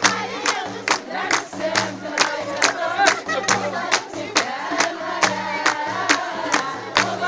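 A group of women singing together in the Kabyle ourar festive style, accompanied by a frame drum (bendir) and hand clapping. They keep a steady beat of about two and a half strokes a second.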